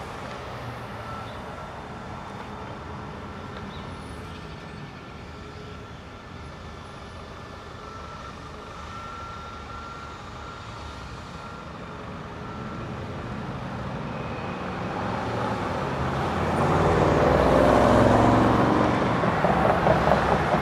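Road traffic at an intersection: a steady low rumble of vehicles. About two-thirds through, a vehicle approaches and drives past close by, growing louder over a few seconds and peaking near the end.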